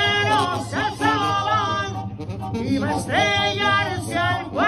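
Male lead singer of a live Mexican banda singing through a microphone, holding long notes with a wide vibrato over a steady low backing.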